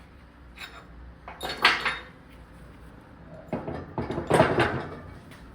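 Steel milling-vise parts being handled: two bursts of clanking and scraping, one about a second and a half in and a longer one about four seconds in.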